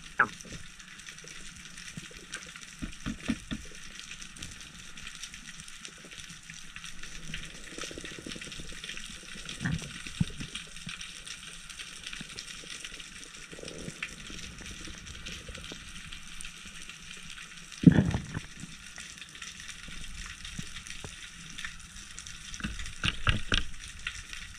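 Underwater ambience picked up by a diver's camera: a steady hiss with a few scattered muffled knocks, the loudest about two-thirds of the way through and a quick cluster near the end.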